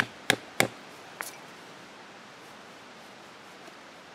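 Sharp wooden knocks, three in quick succession and a fourth just over a second in, as stitching holes are punched through the leather with an awl against the log. Then a steady background hiss.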